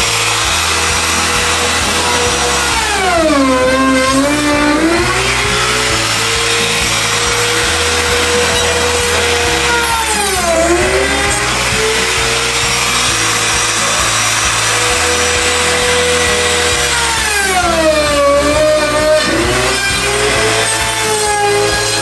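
Trim router running at a steady high whine, its pitch dropping and recovering about four times as the spinning bit is pushed into the wooden drawer front, the motor slowing under the load of the cut while routing a recess for a drawer lock.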